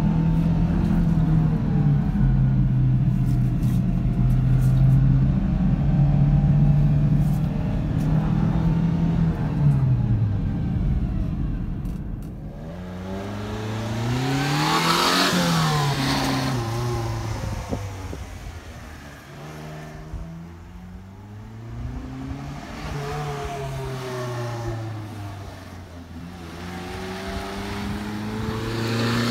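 Subaru Sambar kei truck's small 660 cc four-cylinder engine driving around close by. It runs steadily at first, then its note rises and falls repeatedly as the truck pulls away and turns. It is loudest as the truck passes about halfway through and revs up again near the end.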